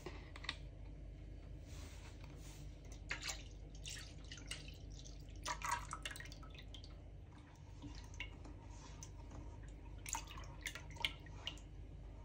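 Milk with pudding powder poured in a thin stream from a measuring jug into a pot of milk, with faint dripping and splashing, then a spatula stirring the mix in the pot.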